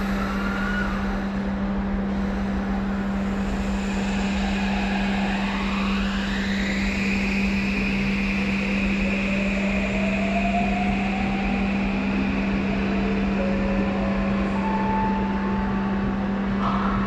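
Electric train pulling out of an underground station: the traction inverter and motors whine, rising smoothly in pitch as the train accelerates, over a steady low hum and the rumble of the cars.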